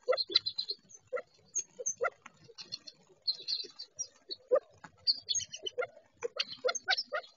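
California quail feeding, giving an irregular run of short, soft clucks and ticks, several a second. Higher, thin chips from small songbirds are mixed in.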